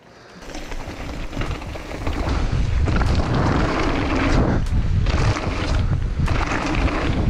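Wind rushing over an action camera's microphone and tyre rumble on dirt as a mountain bike rides downhill, louder over the first two seconds, with a few sharp knocks from the bike.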